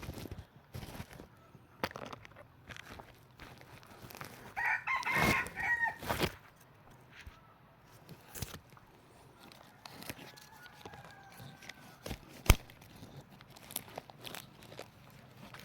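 Red junglefowl cock crowing once, loudly, about five seconds in, with a fainter crow-like call around ten seconds in. Scattered sharp clicks and rustles come through, one sharp click near the end.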